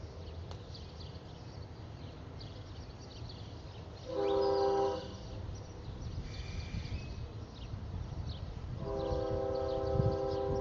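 Train horn sounding a steady chord of several notes: a short blast of about a second about four seconds in, then a longer blast starting near the end.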